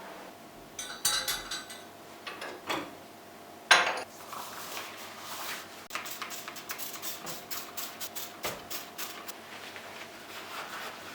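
Small hard objects clinking and knocking as they are handled: a few clatters about a second in, one sharper knock near four seconds, then a run of quick light clicks.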